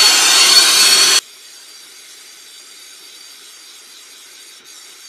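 Air-acetylene turbo torch flame hissing loudly with a thin, steady high whistle; about a second in, the sound cuts off abruptly, leaving only a faint steady hiss.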